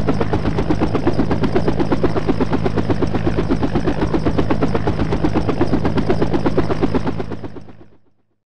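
Helicopter rotor beating rapidly, about ten pulses a second, over a steady engine hum. It fades in, then fades out near the end.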